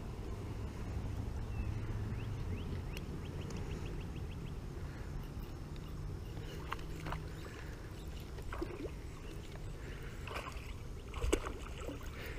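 Spinning rod and reel handled during a lure retrieve: a steady low rumble with scattered light clicks, and a sharper knock about eleven seconds in as the lure comes in to the bank.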